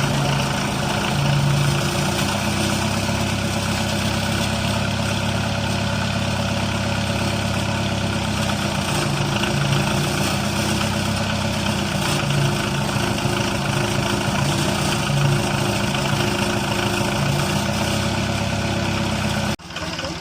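Yanmar excavator's diesel engine running steadily at idle, cutting off suddenly near the end.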